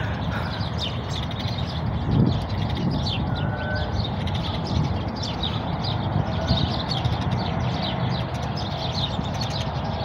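A flock of small birds chirping together in a dense, continuous chorus of short calls as they settle in to roost.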